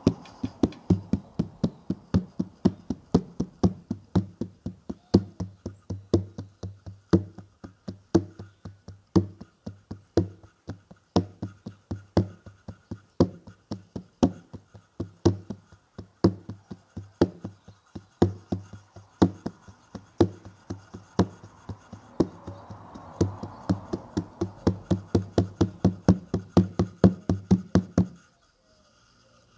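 Steady drumming on a hand drum, about two to three beats a second, each beat a sharp strike with a low boom; it stops abruptly near the end.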